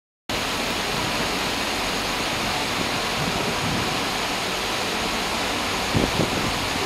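Steady, even rushing noise of a railway station platform's background, starting suddenly just after the cut, with two brief knocks about six seconds in.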